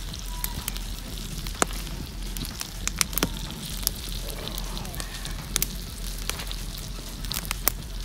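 Flour-dredged calf liver sizzling in a cast iron skillet over campfire coals, a steady hiss with sharp pops and crackles scattered through from the fire and the hot fat.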